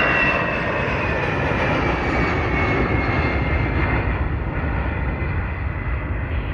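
Airbus A319-112's twin CFM56 turbofan jet engines at takeoff thrust as the airliner climbs away after liftoff. A steady, loud jet roar with a whine that falls slowly in pitch, easing a little as the plane recedes.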